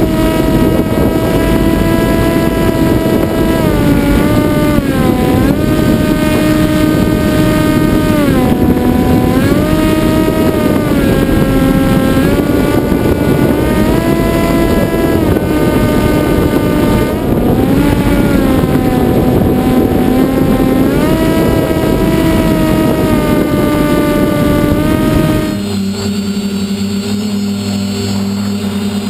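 Electric motor and propeller of an FPV model plane heard through its own onboard camera: a steady whine whose pitch dips and comes back up several times, over a rush of airflow noise. About 25 seconds in it cuts to a steadier, lower hum.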